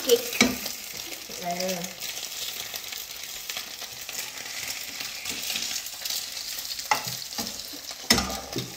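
An egg frying in a pan on a gas hob, a steady sizzle, with a couple of sharp knocks near the end.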